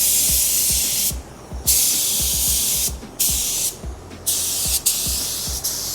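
Air-powered paint spray gun (a high-transfer-efficiency HTE gun) hissing in repeated trigger pulls of about a second each, four or five times, as paint is laid on a car body. The air pressure is still too low for the paint to atomize properly.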